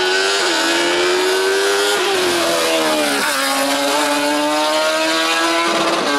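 Sport prototype race car accelerating hard up a hill climb course, its engine pitch climbing and then dropping sharply at upshifts about half a second, two and three seconds in. It then holds a steady high note as it pulls away.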